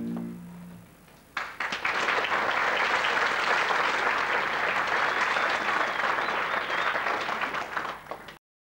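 A held musical chord fades out, then a theatre audience starts applauding about a second and a half in, steady clapping that stops abruptly when the sound cuts off near the end.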